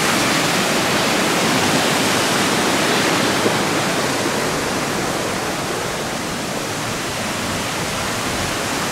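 Steady rushing of a mountain stream, the Kibune River, easing slightly in loudness about halfway through.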